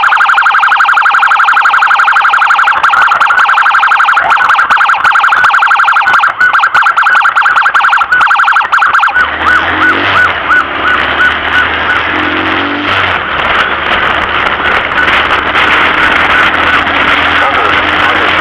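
Emergency vehicle siren sounding a very fast yelp. About nine seconds in it switches to a slower pattern of short rising chirps, about two a second, over a low engine hum and road noise.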